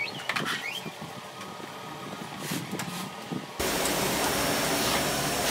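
A rug being dragged and rolled up on a concrete floor, with scattered scrapes and soft knocks. About three and a half seconds in, a vacuum cleaner's steady motor noise cuts in abruptly and is the loudest sound.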